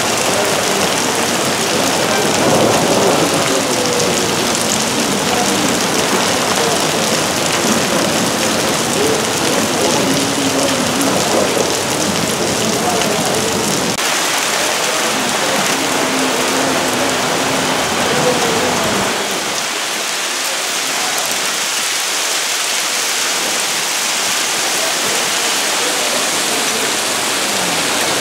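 Heavy rain mixed with hail pouring onto a paved street and parked cars: a dense, steady hiss that keeps going throughout. The deeper part of the sound drops away about two-thirds of the way through.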